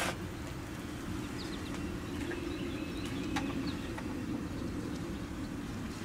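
Outdoor ambience: birds chirping in short calls over a steady low rumble, with a single light click about three seconds in.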